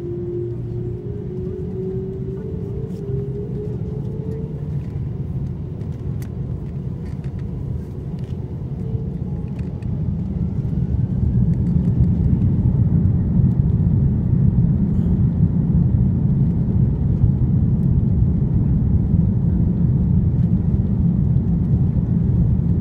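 General Electric CF6-80E1 turbofans of an Airbus A330-300, heard from inside the cabin, spooling up. A humming tone rises over the first few seconds, then the low rumble grows louder about ten seconds in and holds as thrust builds for takeoff.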